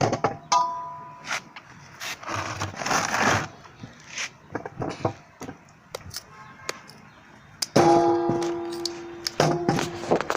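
Metal cookware being handled: repeated clanks and knocks, several of them ringing on with a bell-like tone. There is a rougher scraping stretch a couple of seconds in, and a loud ringing clang near the end.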